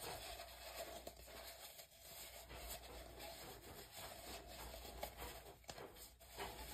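Faint rubbing and light handling noises with a few small clicks.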